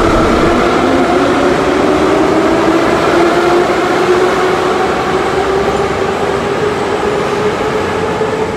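Moscow Metro train running, a steady rumble of wheels with the whine of its traction motors rising slowly in pitch as it gathers speed.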